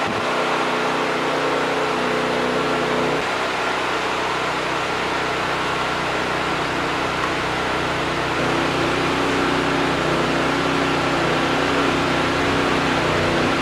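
A motor or engine running steadily, with a constant high whine over its hum. The tone of the hum shifts slightly about three seconds in and again a little past the middle.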